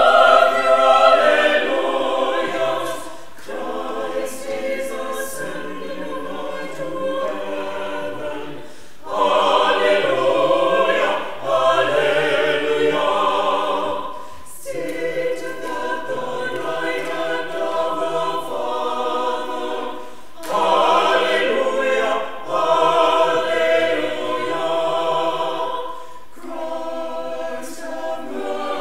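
Church choir singing an anthem in sung phrases of a few seconds each, with brief breaks between them.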